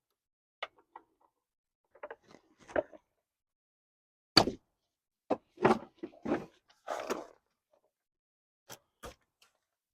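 Irregular knocks and short clunks of tools and parts being handled on the truck's engine, about a dozen separate hits with silence between them.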